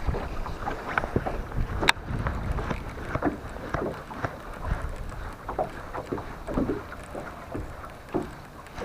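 Wind buffeting the microphone, with scattered light knocks and taps from handling fishing gear on the water.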